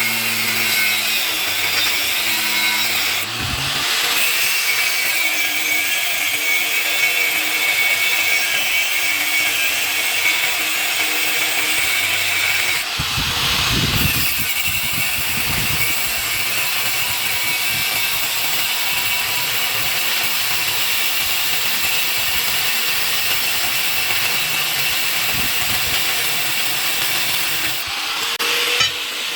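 Power tool grinding or cutting the steel of a leaf spring, running steadily with short breaks about three seconds in, around thirteen seconds in and near the end.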